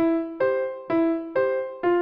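Background keyboard music starts suddenly: piano-like chords struck about twice a second, each ringing and fading before the next.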